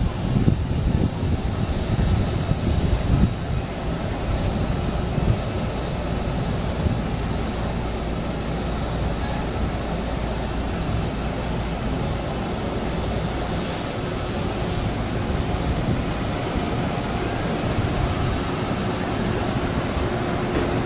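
Taiwan Railways Tze-Chiang electric multiple unit pulling slowly through the platform, a steady low rumble of its running gear and traction equipment with a thin high whine above it. A few louder bumps come in the first three seconds.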